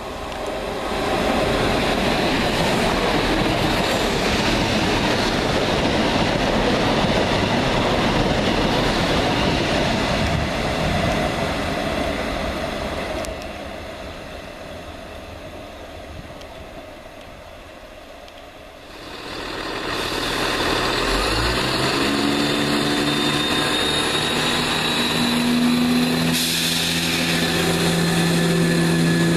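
A train passes at speed, a loud rush of wheels and air that fades away over several seconds. Then a ScotRail Class 170 Turbostar diesel multiple unit runs close by with its underfloor diesel engines, the engine note rising in steps.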